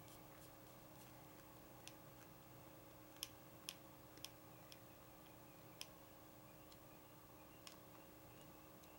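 Faint, sparse clicks of a small screwdriver working the screws of a folding knife's handle scale, several in a cluster in the middle, over a low steady hum.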